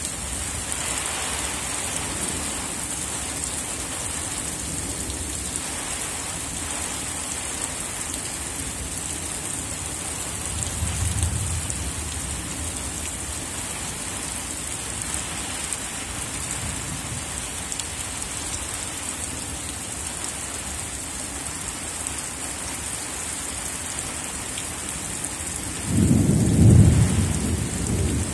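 Steady rain falling on a waterlogged field, with a faint rumble of thunder about eleven seconds in and a loud rumble of thunder near the end.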